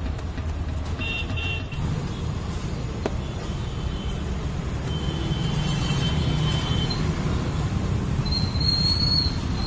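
Street traffic with a steady low rumble and vehicle horns: short high beeps about a second in, a longer horn note around the middle, and a thin high tone starting near the end.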